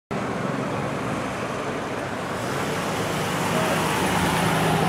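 Street traffic noise with a vehicle engine running steadily, growing a little louder after about two seconds, and a murmur of people's voices.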